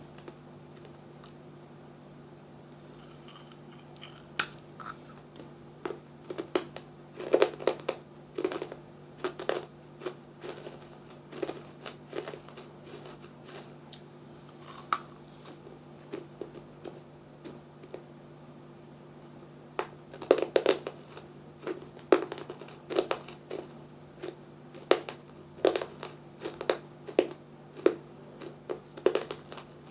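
Someone biting and chewing a small baked-clay diya lamp: sharp, crisp crunches and cracks that come in runs with short pauses, over a faint steady low hum.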